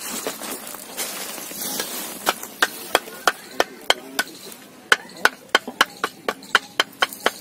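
Two fired clay bricks knocked against each other again and again, sharp clinks about three a second that begin about two seconds in, each with a short ring. Before the knocking there is quieter scraping of bricks being handled.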